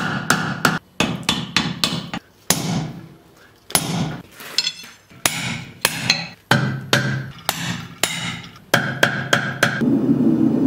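Blacksmith's hammer striking hot steel on an anvil: runs of sharp blows a few a second, with a ringing tone between some of the strikes and a sparser, quieter stretch in the middle.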